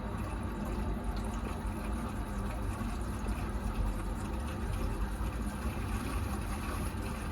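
Steady rushing of water as the cold supply flushes through the electric water heater tank and out its open drain, a flush to stir up and carry out sediment.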